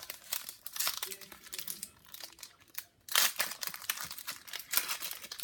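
Plastic wrapper of a trading card pack crinkling and tearing as it is opened, a run of rustles with louder crackles about three seconds in and near the end.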